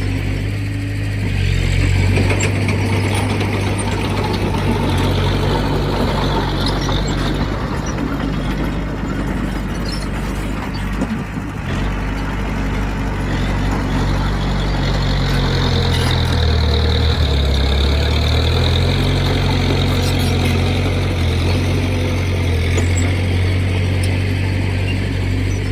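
Heavy diesel engine of earthmoving machinery running steadily, with rough mechanical noise over it; the engine note dips and rises briefly after about sixteen seconds.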